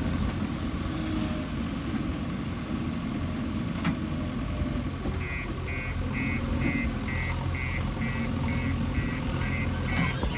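Diesel engine of heavy earthmoving machinery running steadily. About halfway in, a reversing alarm starts beeping, about two beeps a second.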